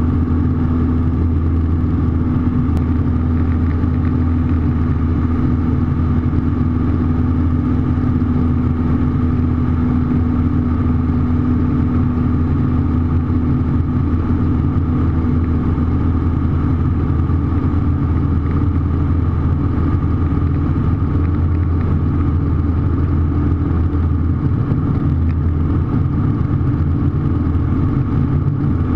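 Light aircraft's piston engine and propeller droning steadily at cruise, heard from inside the cockpit.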